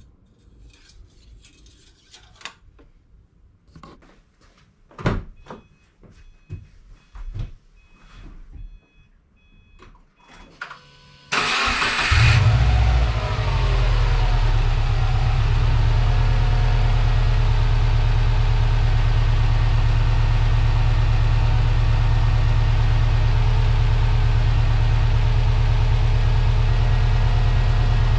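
A few clicks and knocks and faint beeps, then, about eleven seconds in, the Subaru Forester's turbocharged EJ20 flat-four cranks briefly and catches. It settles into a steady idle on its first start after an oil change.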